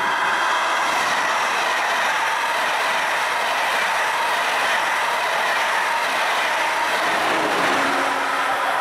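Deutsche Bahn ICE 2 high-speed train passing close at speed, a steady loud rush of wheels and air.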